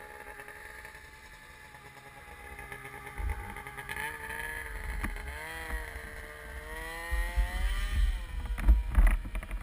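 Snowmobile engine revving up and down, its pitch rising and falling repeatedly and growing louder as it comes closer, with a low rumble building near the end.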